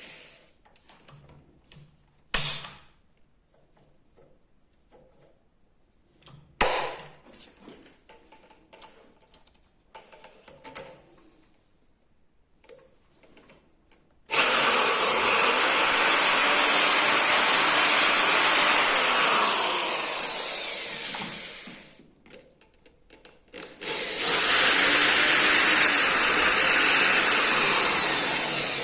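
A small handheld power tool with a grinding bit, sharpening chainsaw chain cutters. It runs loud and steady with a high whine for about eight seconds, stops, then runs again for about five seconds. Before that come scattered clicks and knocks of the chain and tool being handled.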